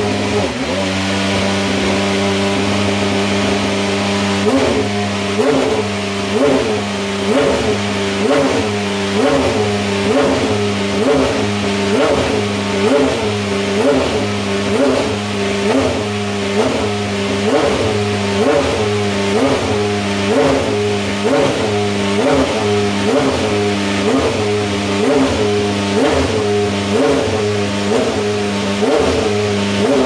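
Toyota TS040 Hybrid's V8 engine running while the car stands still, its note rising and falling in even pulses about once a second from a few seconds in.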